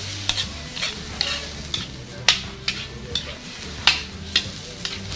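Carrots and cabbage being stir-fried for pancit: a cooking utensil scrapes and knocks against the pan in sharp clicks, roughly two a second, over the sizzle of the frying.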